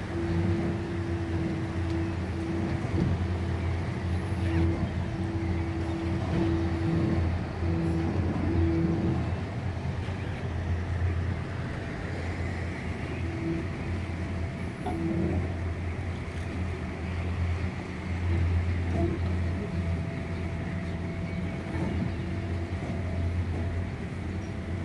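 A river passenger boat's engine running steadily, heard from the deck as a low hum, with a higher tone that comes and goes in the first half, over the wash of water past the hull.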